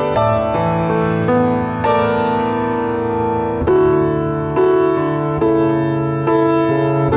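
Piano music: sustained chords and a melody, with new notes struck roughly once a second.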